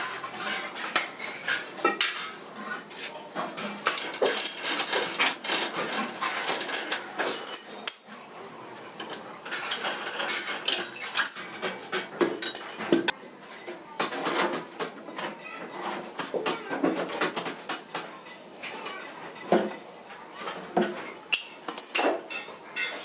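Irregular metallic clinks and knocks of hand tools striking and handling metal, with sharp taps coming several times a second.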